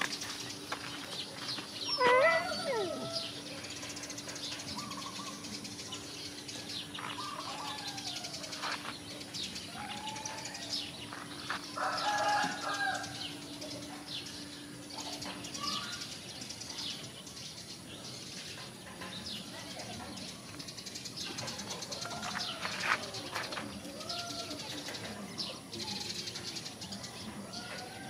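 Footsteps and rustling on a dirt lane, with birds calling repeatedly around it; a louder call that glides in pitch comes about two seconds in.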